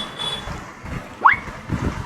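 A quick rising whistle-like tone about a second and a quarter in, the loudest moment, over soft low knocks.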